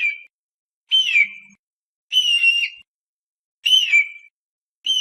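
Bird of prey crying: a run of short, high-pitched screams, one about every second and a quarter, each starting high and dropping in pitch.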